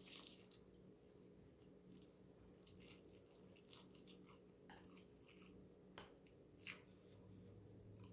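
Close-up eating sounds: Samyang instant noodles being slurped and chewed, in a series of short slurps and smacks. The loudest comes about two thirds of the way through.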